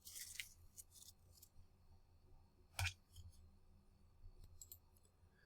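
Near silence with a low hum and a few faint clicks, the sharpest one a little under three seconds in.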